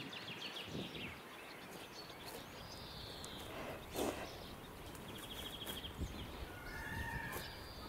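Outdoor ambience with small birds chirping and trilling at intervals. There is a short noisy puff about four seconds in.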